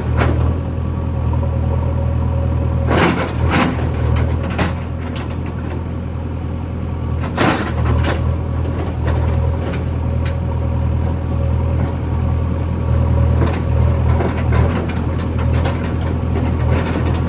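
JCB backhoe loader's diesel engine running steadily through a digging cycle, with a few sharp knocks and clanks from the working bucket and arm about three, four and seven seconds in.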